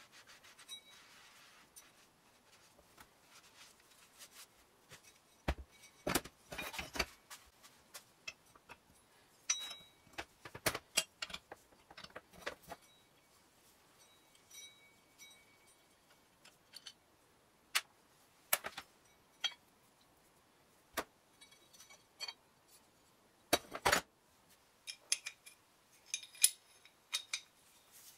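Scattered clinks and knocks of iron pottery-wheel parts being handled and set down on a steel workbench, a few with a short metallic ring.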